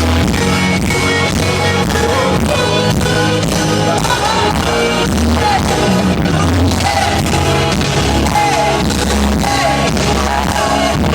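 Loud live concert music: a singer performing with a band over a steady deep bass line.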